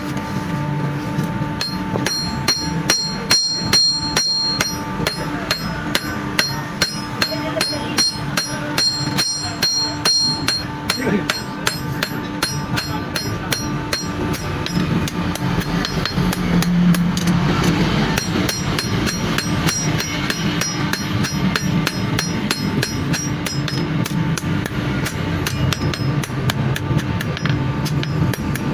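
Hammer forging steel rebar on an anvil: a long run of rapid, evenly paced blows with a metallic ring, over a steady low hum.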